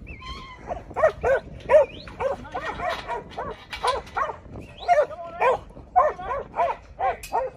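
Working sheep-yard dog barking repeatedly at a mob of sheep to move them: short sharp barks, about two or three a second, starting about a second in.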